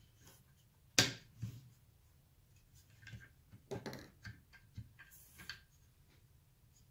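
Hard plastic parts of a MicroJig GRR-RIPPER push block clicking and knocking as they are fitted together by hand. The loudest knock comes about a second in, with scattered lighter clicks and a small cluster around four seconds.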